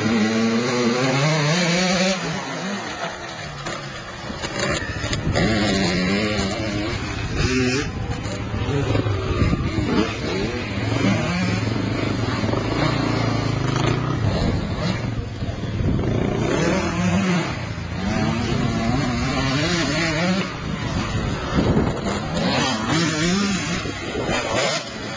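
Dirt bike engines revving, with the pitch rising and falling again and again as the throttle is worked.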